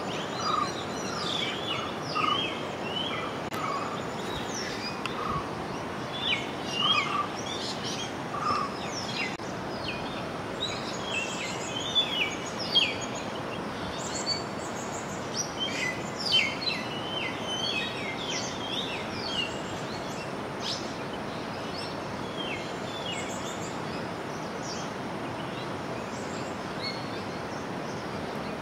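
Several birds chirping and calling in quick, short chirps over a steady background hiss. A lower note repeats about every second for the first nine seconds or so. The chirping is busiest in the first two-thirds and thins out near the end.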